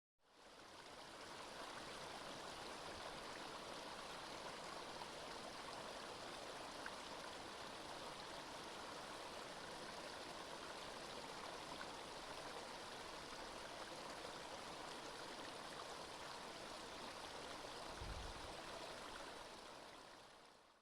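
Water of a small stream running steadily, a continuous even rush that fades in at the start and fades out at the end. A brief low thump comes about eighteen seconds in.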